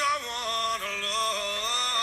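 A woman's lead vocal in a live pop performance, holding one long note that bends and wavers in pitch, over the band.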